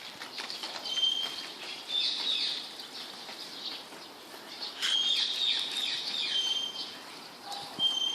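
Birds chirping: many short, high calls and quick falling chirps, coming in clusters, with a few sharp clicks among them.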